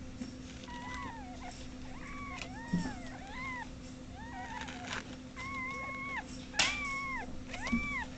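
Kittens mewing again and again: short, high, arched mews, a few longer and held steady, over a steady low hum, with a couple of soft knocks.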